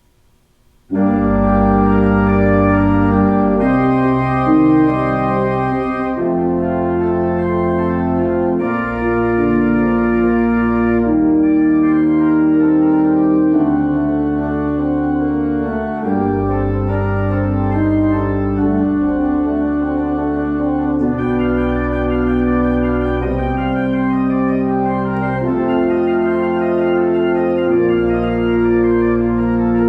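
Organ music: sustained chords with a moving bass line, changing roughly every two seconds, starting abruptly about a second in.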